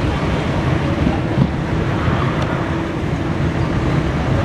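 On board a moving metre-gauge passenger train hauled by a YDM4 diesel locomotive: a steady low diesel drone under the even rush of wind past the open coach door.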